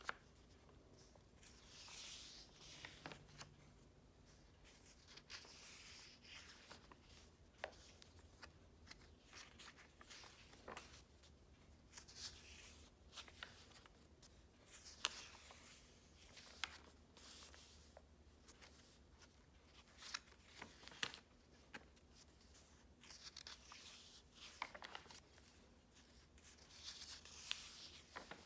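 Faint paper rustling as the pages of a hand-written journal are turned one after another: soft swishes and small flicks every couple of seconds.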